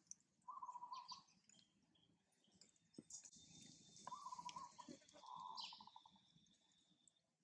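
Faint outdoor animal calls: three short buzzy, rattling calls and scattered high chirps, over a thin steady high whistle.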